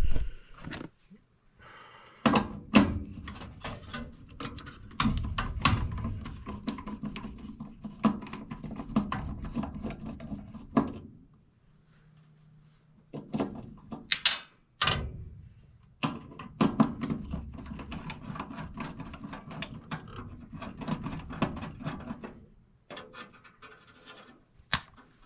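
Irregular clicks, knocks and rubbing from hands and tools working on a gas furnace's parts, with a quieter spell around the middle.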